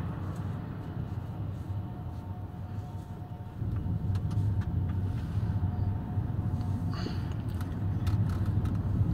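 Engine and tyre noise inside a moving car's cabin: a steady low rumble that grows louder about three and a half seconds in.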